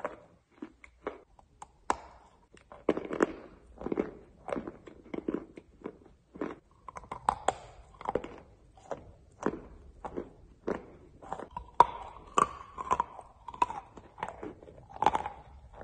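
Close-up crunching and chewing of a chunk of edible chalk: irregular dry crunches a few times a second as it is bitten and ground between the teeth.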